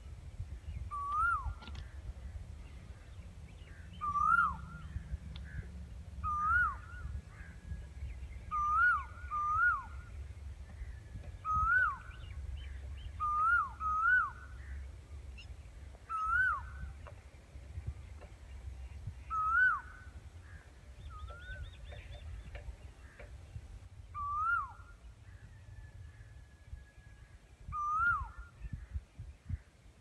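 Asian koel singing: about a dozen loud, clear 'ku-oo' notes, each rising and then dropping sharply, repeated every second or two, sometimes in quick pairs, with longer gaps later on. A low rumble runs underneath.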